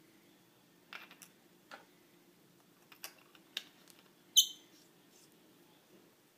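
Hands handling metal laser pointers: a scatter of light clicks and taps, with one sharper, ringing metallic click about four seconds in.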